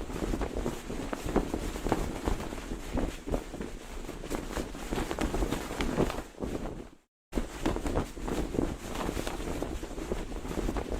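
Cloth flag flapping in strong wind: a constant rushing flutter broken by many quick, sharp snaps of the fabric, with wind buffeting the microphone. It cuts out completely for a moment about seven seconds in, then resumes.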